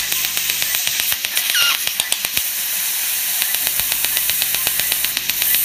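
Fotona LightWalker Er:YAG dental laser firing at a tooth: rapid, evenly spaced popping, more than ten pops a second, over a steady hiss of water spray and suction, as it ablates decay to prepare a baby molar for a composite filling.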